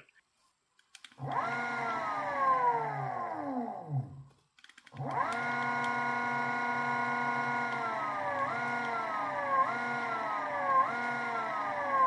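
Golden Motor HPM 10kW dual-stator PMSM motor whining as its sinewave controller drives it in reverse at modest RPM. About a second in it spins up and then winds down with falling pitch; from about five seconds it holds a steady whine whose pitch sags and jumps back up four times as the throttle is eased and twisted again.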